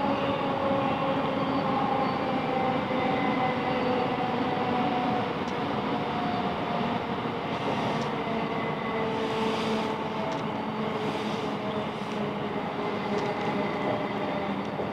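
Class 707 Desiro electric multiple unit running along the line: a steady rumble of wheels on track under a layered electric traction whine that slowly falls in pitch.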